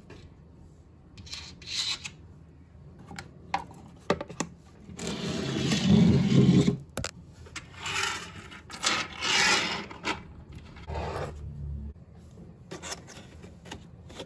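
Hands sliding and rubbing things across a shelf: a run of irregular scraping and rubbing noises, the longest and loudest about five to seven seconds in, with a few light knocks between.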